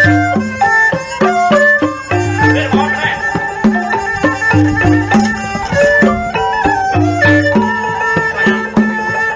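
Background music: a melody of short held notes stepping up and down over a steady low drum beat.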